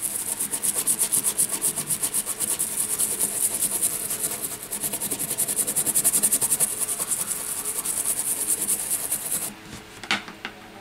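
A stiff brush scrubbing an iPhone 7 Plus logic board in rapid back-and-forth strokes, about five a second. This is the cleaning of the board after its audio codec has been resoldered. The scrubbing stops near the end, followed by a few light clicks.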